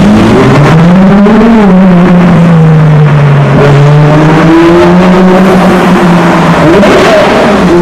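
Ferrari LaFerrari's V12 engine revving, rising and falling once about a second in, then running steadily at a low rev with a few short rises near the end.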